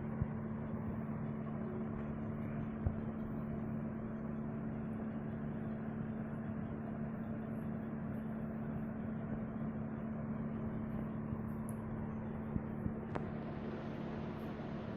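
Steady low hum with a constant tone and hiss, and a few faint clicks.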